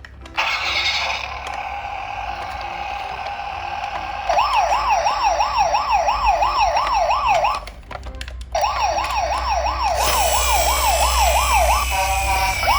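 Electronic toy emergency-vehicle sirens. A steady tone first, then a fast warbling siren rising and falling about three times a second. The warble breaks off briefly and starts again, with other high siren tones overlapping near the end.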